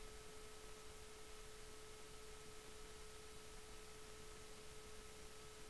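Near silence: a faint steady hum, one constant tone with a weaker higher one, over low hiss.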